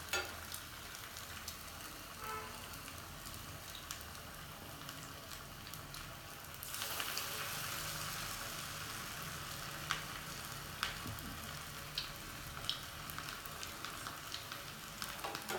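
Maggi noodle cutlets sizzling in hot frying oil, a steady hiss that grows louder about a third of the way in, with occasional sharp pops or clicks.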